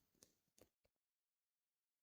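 Near silence: a few very faint ticks in the first second, then the audio cuts to complete digital silence.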